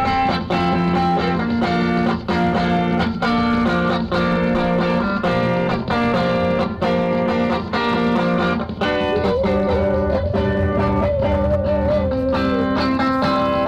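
Amplified electric guitar strummed in a steady rhythm, with a harmonica played over it. About nine seconds in, the harmonica slides up into a long wavering note that it holds for about three seconds.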